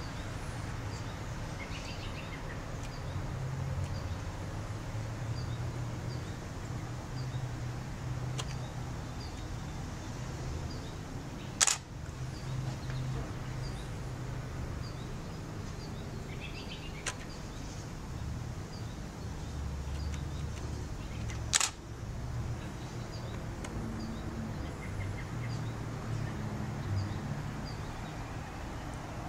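Outdoor ambience: a steady low rumble with faint high chirps repeating about once a second, broken twice by a single sharp click, about 12 seconds and 22 seconds in.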